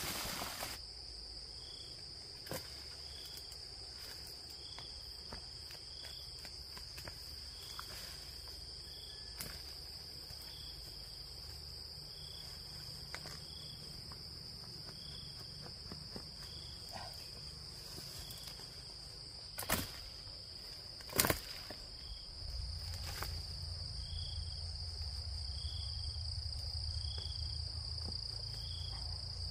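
Insects shrilling in a steady high drone, with a short chirp repeating about once a second. Two sharp knocks come about two-thirds of the way through, and a low rumble sets in soon after.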